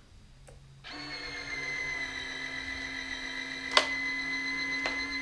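Nose-gear retract unit of a large RC plane cycling: after a brief silence its motor starts about a second in and runs with a steady whine as the strut swings out, with two sharp clicks along the way.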